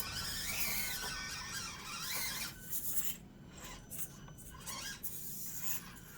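Axial SCX24 1/24-scale RC crawler driving: its small electric motor and gears whine, rising and falling with the throttle, for the first couple of seconds. After that comes a quieter stretch of broken scraping and rasping as it crawls.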